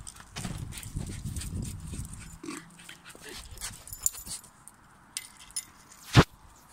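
Small terriers growling at each other in rough play for the first couple of seconds, then quieter with a few faint clicks. A single sharp knock about six seconds in is the loudest sound.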